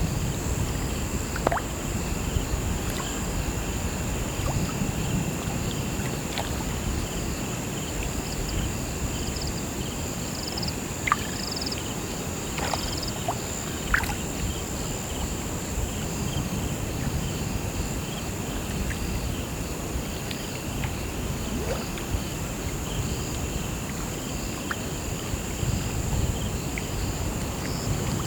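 Crickets chirping in a steady high trill, with a second, pulsing chirp beneath it, over the low lapping rush of river water. A few sharp ticks stand out, about a second and a half in and around eleven and fourteen seconds.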